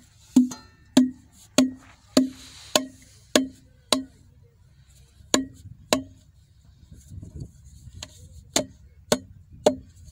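Plastic PVC drain-pipe fittings knocked down against the ground to seat them together: sharp hollow knocks, seven in a steady row about every half second, then two more, then three near the end.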